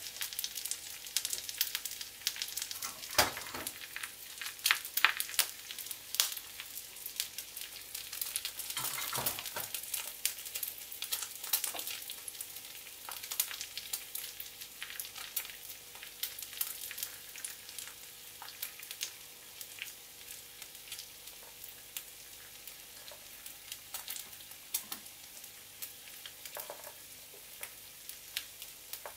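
Egg frying in oil in a small cast-iron skillet: a steady sizzle with many sharp crackles and pops, busiest in the first half and thinning out toward the end.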